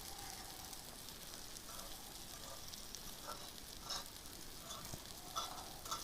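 An egg sizzling faintly in a fajita skillet on the pan's residual heat, burner off, while a utensil stirs and scrambles it, with a few short scrapes against the pan.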